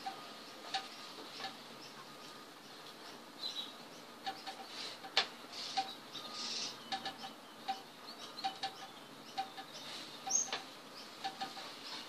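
Soldering-iron tip used for wood burning, tapping and dotting on a wooden board: faint, irregular light ticks, some with a brief ring. A few short high chirps come in between.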